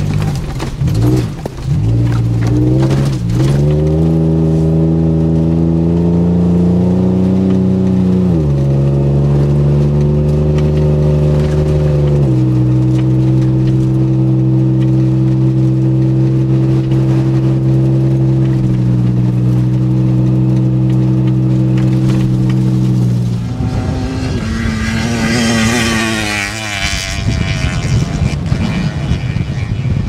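Jeep Wrangler JK's engine pulling as it drives over a stony beach, its pitch rising, then stepping down twice as it shifts up, then holding steady. About three-quarters of the way through the engine note drops away under a loud rushing noise.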